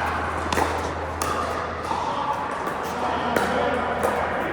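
Pickleball paddles striking a plastic ball: several sharp pops a second or two apart, over a steady background of voices.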